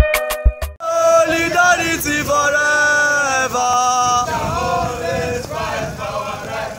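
A group of men chanting a protest song together while marching, with long held notes. Under a second in, a short burst of beat-heavy intro music cuts off and the chanting begins.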